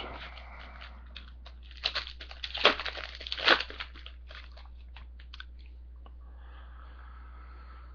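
A foil trading-card pack wrapper being torn open and crinkled by hand, with a few small clicks of cards being handled.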